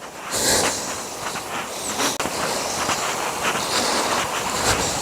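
Steady rushing of river water flowing over a fall, with irregular crunching footsteps on the path.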